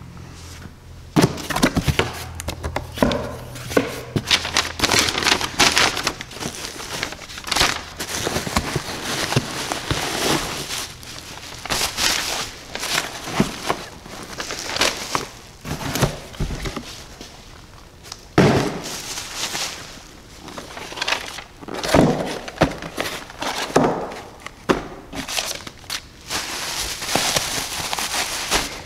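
A cardboard shipping box being unpacked by hand: flaps scraping, foam packing peanuts rustling and bubble wrap crinkling, in irregular rustles and sharp crackles.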